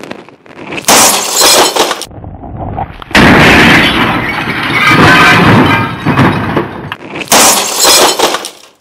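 A printer smashed with a nail-spiked baseball bat: loud crashes of its plastic casing splitting and the glass inside shattering, in three loud stretches, the middle one the longest.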